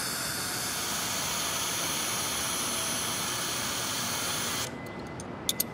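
Steady hiss of compressed air from chain hoists lifting a jet engine. It cuts off abruptly near the end, followed by a few sharp clicks.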